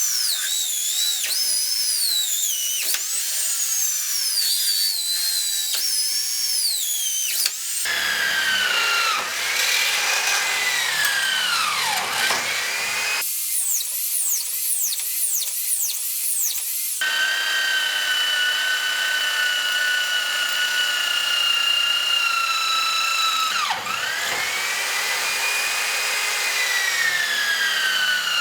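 A small electric power tool's motor whining at high pitch, its pitch repeatedly sagging and recovering as it bears on the work. The sound changes abruptly several times as one short clip gives way to the next.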